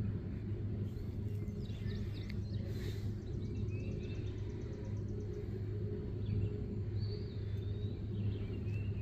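Rural outdoor ambience: a steady low background rumble, with songbirds chirping faintly. There are a few short whistled calls and one quick ticking trill.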